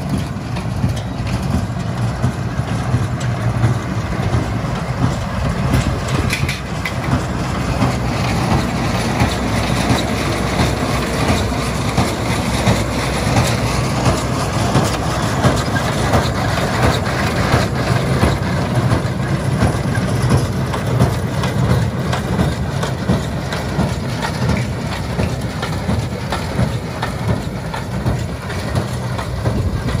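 John Deere 6330 tractor's diesel engine running steadily under load, with the mechanical clatter of a New Holland 370 small square baler picking up and compressing hay into bales.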